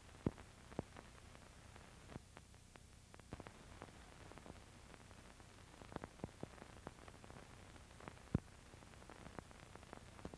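Faint steady hiss and low hum with irregular sharp clicks and pops, the loudest about a quarter second in and about eight seconds in: the background noise of an old film transfer with no program sound.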